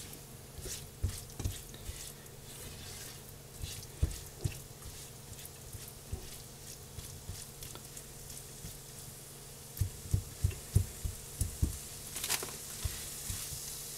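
Crumbled sausage frying with a light sizzle in a nonstick skillet while a silicone spatula scrapes and taps against the pan, with a quick run of taps near the end.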